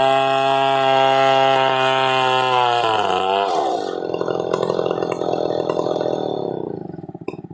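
Stihl chainsaw running at full throttle, then let off about three seconds in: the pitch drops and it runs on at a lower, pulsing speed before dying away and stopping at the very end.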